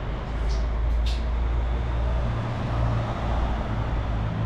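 Street traffic: a steady low engine rumble from a nearby road vehicle, with two brief high hisses about half a second and a second in.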